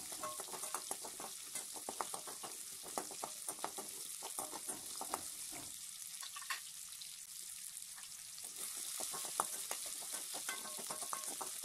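Whole peeled shallots frying in sesame oil in a metal kadai: a steady sizzle with the clicks and scrapes of a slotted metal spoon stirring them. The stirring stops for a couple of seconds about halfway through, then starts again.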